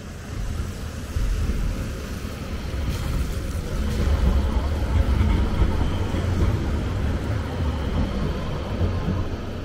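A road vehicle passing close by: a low rumble with tyre noise that builds to its loudest about halfway through and then eases off.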